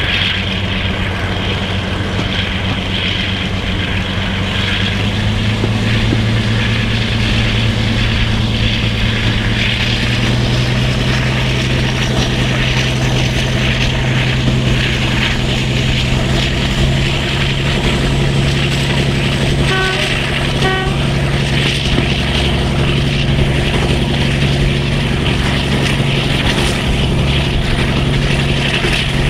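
Twin Maybach V12 diesel engines of Class 42 Warship D821 working hard at the head of the train, heard from an open carriage window: a loud, steady engine drone that rises in pitch about five seconds in and then holds, over a constant rush of train noise, with a faint high whine climbing slowly in pitch through the rest.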